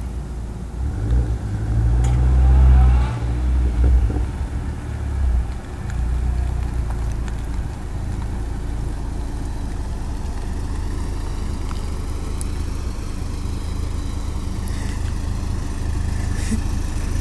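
Pontiac Solstice GXP's turbocharged 2.0-litre four-cylinder, running a Trifecta tune, revving loudly with rising pitch, then settling into a steady low idle about five seconds in.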